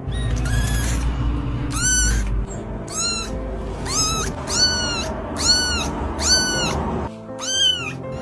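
Kitten mewing repeatedly: about eight short, high-pitched mews, each rising then falling, starting about two seconds in and coming roughly one or two a second, over background music.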